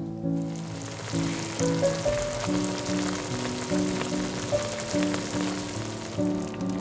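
Sliced mushrooms, onion and garlic sizzling and bubbling in white wine in a frying pan while the wine cooks off, with soft piano-like background music. The sizzling fades out shortly before the end.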